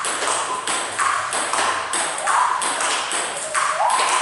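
Table tennis balls clicking off a bat and bouncing on the table in quick succession, about three sharp clicks a second, in a steady drill as a ball-feeding robot sends balls back to the player.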